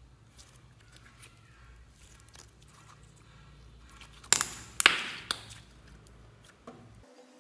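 Slime being squeezed and kneaded by hand, faint sticky clicks at first, then three loud wet pops with crackling about four to five seconds in.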